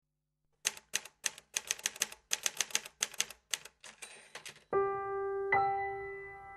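Typewriter keys striking in a quick, uneven run of about twenty clacks, typing out a line. Near the end the typing stops and a sustained keyboard chord begins, with another note joining it about a second later.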